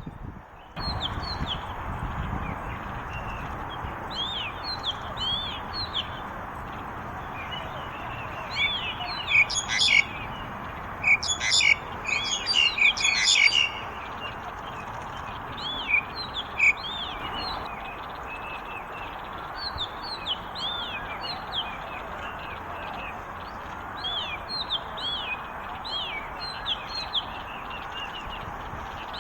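Small birds chirping, short quick chirps repeating over and over, with a louder flurry of chirping about a third of the way in. Underneath is a steady background rush.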